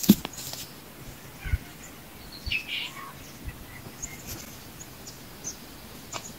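Quiet open-air ambience with a few faint bird chirps, mostly about two and a half to three seconds in. Scattered soft crackles and low knocks, with one sharper crackle right at the start.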